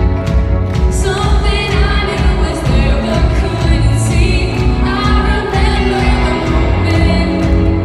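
A young woman singing lead into a microphone over a live band with drums and bass, a pop-style worship song played loud and steady.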